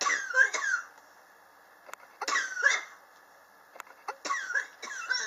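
A person coughing in three short bouts of two or three coughs each: the chronic cough the person has had for about three years.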